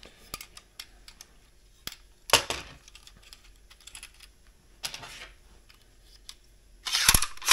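Plastic and metal clicking and clacking from a Spotnails 15-gauge composite finish nailer's magazine as a strip of plastic composite nails is handled and slid into it. Scattered light clicks are broken by a louder clatter about two and a half seconds in and the loudest clacks near the end.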